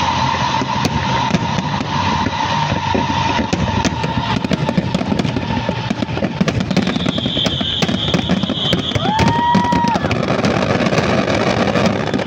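Fireworks display with dense crackling and popping. About nine seconds in, a short whistle rises, holds and drops away.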